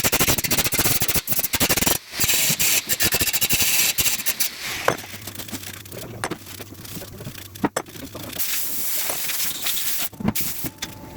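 MIG welder crackling and spitting in runs on car body steel, with short breaks between runs and a low steady hum beneath.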